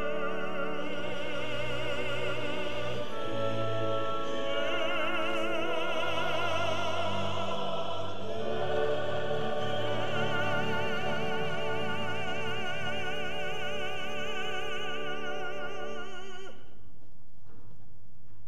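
Operatic singing with orchestral accompaniment, the voices carrying wide vibrato over sustained orchestral chords. About two seconds before the end the singing stops and only the strings go on.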